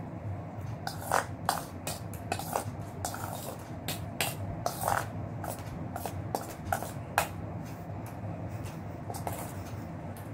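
Eating sounds from a steel bowl of milk and puffed rice: a metal spoon scraping and clinking against the bowl, and slurping sips of milk. They come as a string of short sharp sounds that die down after about seven seconds, over a steady low hum.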